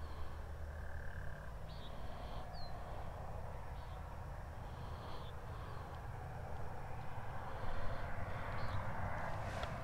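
Outdoor ambience: a steady low rumble with a few short, high animal chirps, growing a little louder near the end.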